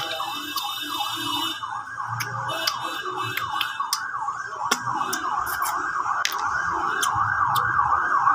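A siren-like warbling tone sweeps rapidly up and down, several times a second, without a break. Scattered sharp clicks and cracks come through it as cooked crab shell is broken apart by hand.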